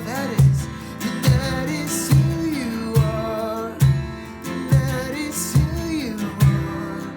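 Worship music: strummed acoustic guitar keeping a steady beat, with an accented stroke a little under once a second.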